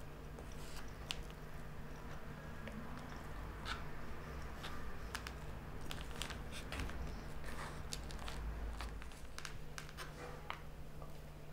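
Quiet indoor room tone with a steady low hum, broken by irregular small clicks and crackles a few times a second.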